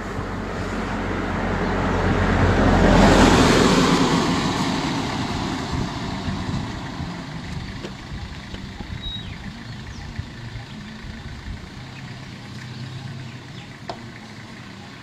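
A road vehicle passing close by, its engine and tyre noise swelling to a peak about three seconds in, then fading away. Near the end a vehicle engine idles quietly.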